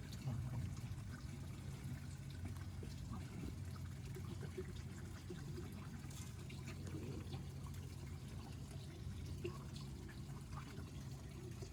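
Steady trickling and splashing of pond water, with small drips.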